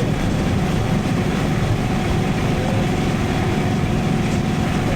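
Honda Transalp 750's parallel-twin engine running steadily at cruise, with road and wind noise, heard through an action camera's built-in microphone.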